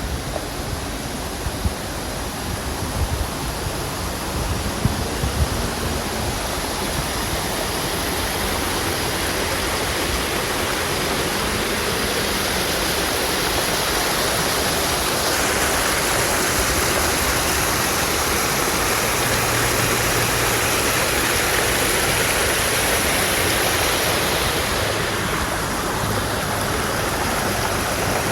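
Rushing water of a stream, a steady noise that grows louder through the first half, with a few low thumps in the first few seconds.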